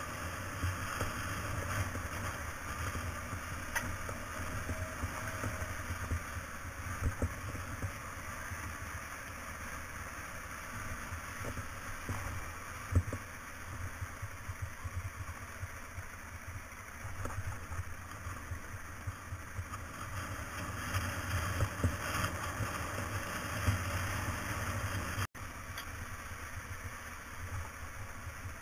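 Motorcycle engine running steadily at low speed on a gravel road, heard from on the bike, with a few sharp knocks along the way. The sound cuts out for an instant near the end.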